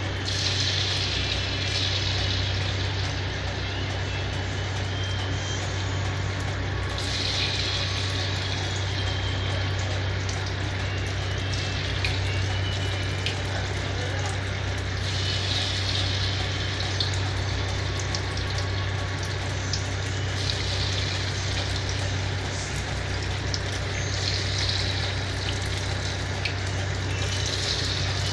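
Vegetable fritter batter deep-frying in a wok of hot oil: a steady sizzle that surges several times as further spoonfuls of batter are dropped in, over a steady low hum.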